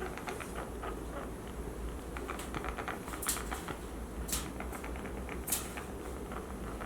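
Sick guinea pig breathing fast and laboured, heard as rapid soft crackling clicks several times a second with a few sharper ticks. This is the panting of respiratory distress in a guinea pig with a painful chest.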